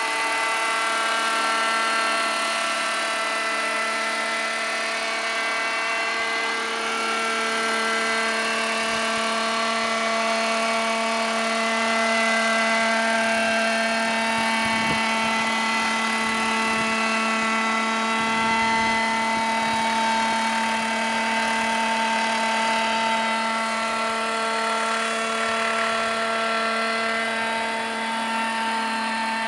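Petrol-engined Vario radio-controlled model of a Robinson R22 helicopter hovering and flying low, its engine and rotors running with a steady note that wavers slightly in pitch.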